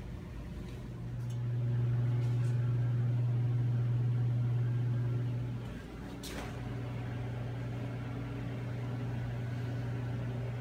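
A steady low hum that swells about a second in, dips briefly near six seconds and then carries on, with a single sharp click just after the dip.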